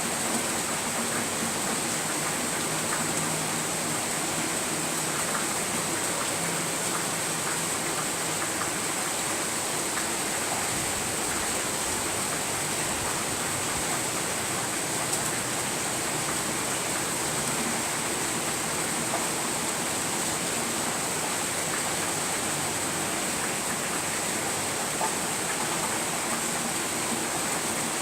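Steady rainfall, a dense even hiss of drops with fine patter throughout.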